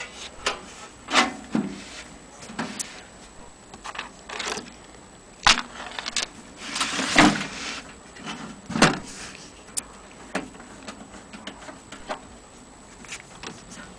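Handling noise from a vintage tube radio chassis being moved and turned over by hand: irregular clicks and knocks of metal and wood, with a longer rustle about seven seconds in.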